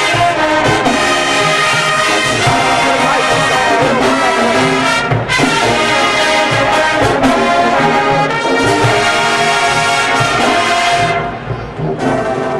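High school marching band playing loud, brass-heavy music, with trombones and trumpets holding full chords. The playing eases briefly near the end, then comes back in.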